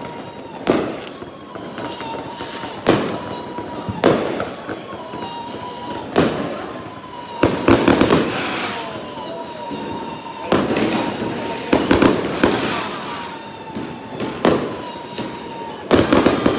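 Fireworks going off: a sharp bang every second or two, with crackling between the bangs and a thin steady tone underneath.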